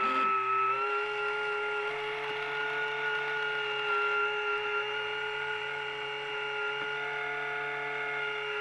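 Small electric gear motor of a restored Omnibot 2000 toy robot running, a steady whir with an even whine that holds the same pitch throughout.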